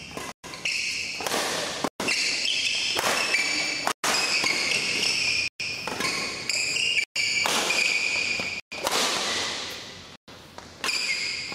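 Badminton rally: rackets striking the shuttlecock back and forth while shoes squeak sharply on the court mat. The sound cuts out for an instant several times.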